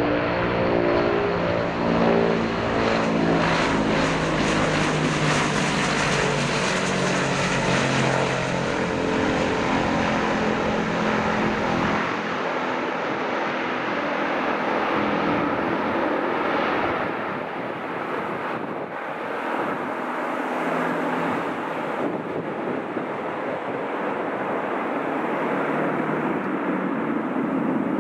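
Antonov An-22's four contra-rotating-propeller turboprops passing close on landing: a loud drone of propeller tones that drops in pitch as the aircraft goes by. After that comes a steady rushing engine noise as it rolls away down the runway, easing slightly.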